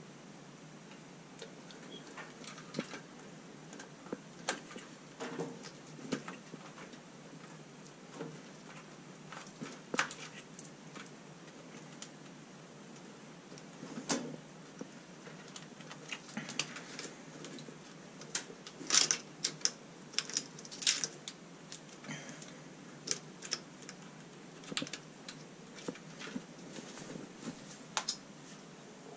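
Irregular light clicks and taps of small hard objects being handled, a few at a time with short pauses, busiest and loudest a little over halfway through.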